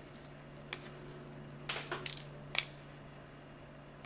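A few light clicks and taps of small plastic and metal parts, a tiny screwdriver and screws working on a slider phone's housing: one click about a second in, a short cluster near two seconds, and one more after that, over a steady low hum.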